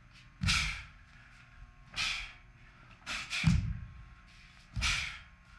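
Taekwondo uniform (dobok) snapping sharply with each kick and strike of a pattern, a crack about every second, some with a thud of bare feet landing on the floor. The loudest, a quick double crack, comes about three seconds in.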